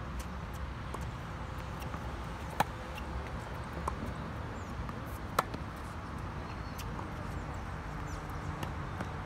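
Tennis rally: sharp pops of racket strings meeting the ball, the two loudest about two and a half seconds in and again about three seconds later, with fainter hits and bounces from the far end in between. Steady low background noise runs under it.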